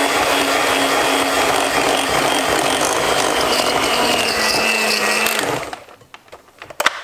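Electric hand mixer running at a steady whine, its twin beaters mixing flour into cake batter in a glass bowl. It winds down and stops about five and a half seconds in, followed by a couple of sharp clicks near the end.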